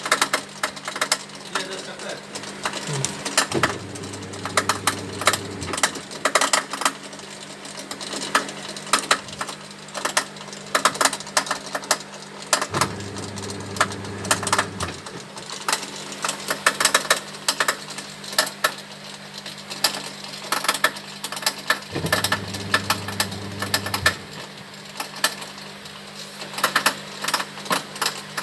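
Whirlpool washing machine's drain pump motor humming in three short bursts of about two seconds each, against a steady background hum and frequent irregular clicking and tapping. The technician takes the drain pump for the cause of the PE error.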